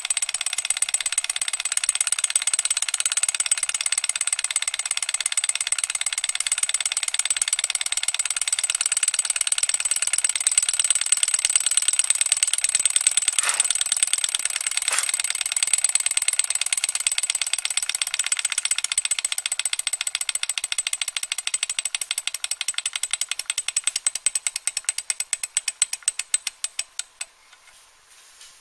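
Small model hot-air Stirling engine running fast, its flywheels, crank and linkage making a rapid mechanical clatter with a steady high whine over it. Over the last several seconds the ticks spread apart and fade as the engine slows and coasts toward a stop.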